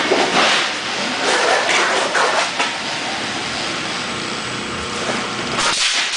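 Metal roofing roll former running: a steady mechanical rattle with repeated sharp metallic clanks and bangs, thickest in the first two and a half seconds and again near the end.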